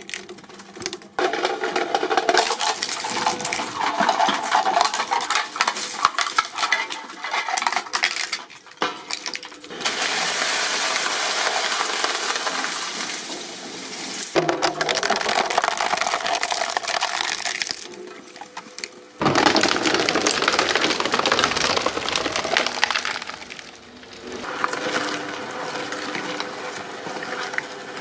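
Shredding machines grinding up material with a loud, dense crushing noise; the sound changes abruptly every few seconds as one machine gives way to another.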